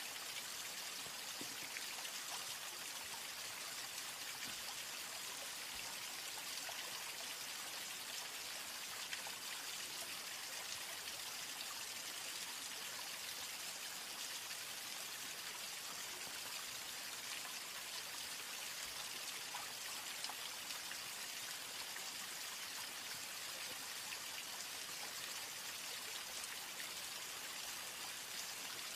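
Wood cooking fire burning with a steady hiss and faint scattered crackles.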